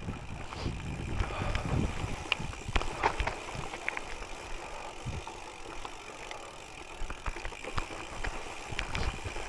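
Gravel bike rolling over a loose, rocky dirt track: tyres crunching over stones, with scattered sharp clicks and knocks from stones and the bike rattling over the rough ground.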